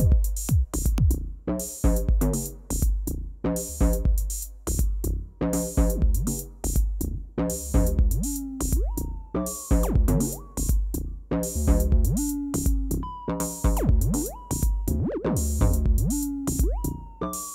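Live electronic dance music from hardware synthesizers and drum machines: a steady, repeating kick drum and hi-hats under a pitched synth line. From about 8 seconds in, a synth note repeatedly slides up and then glides back down in pitch.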